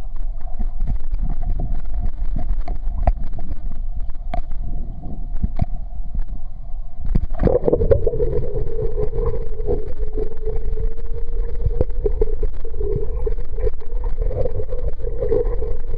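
Muffled underwater sound of a swimming pool: a low rumble with scattered clicks. About seven seconds in a dog plunges in with a rush of bubbles, and a steady tone with bubbling follows.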